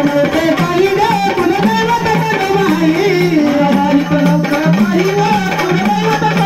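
Instrumental passage of Marathi gondhal devotional folk music: a wavering, bending melody line played over drums.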